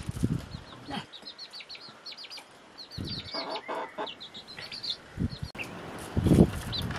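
Chicks peeping over and over in short, high cheeps, with a hen clucking low now and then. A few dull thumps, the loudest about six seconds in.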